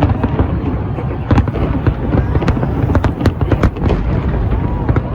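Fireworks display going off: a rapid run of sharp bangs and crackles over a continuous low rumble of distant bursts.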